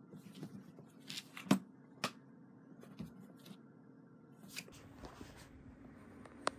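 Cats play-fighting on a bed: rustling and scratching of paws against fabric bedding and a soft pet carrier, with a few sharp knocks, the loudest about a second and a half in.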